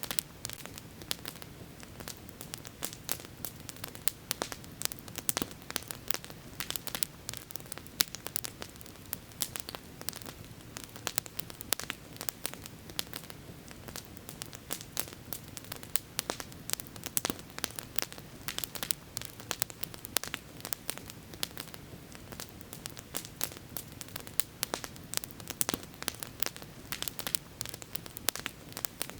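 Wood campfire crackling and popping, many sharp snaps a second over a steady low hiss of the burning fire.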